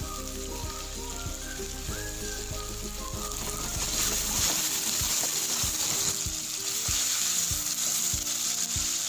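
Cubed tomatoes and green chillies sizzling in hot coconut oil in a clay pot, stirred with a wooden spatula that ticks and scrapes against the pot. The sizzle grows louder about four seconds in.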